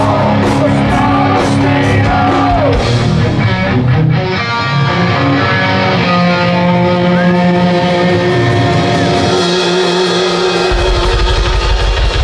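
Live heavy metal band playing through a stage PA: distorted electric guitars, drums and singing. A fast, steady kick-drum beat comes in near the end.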